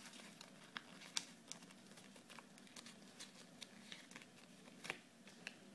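Faint crinkling and scattered soft ticks of a stack of paper sheets being folded by hand and pressed flat along a crease.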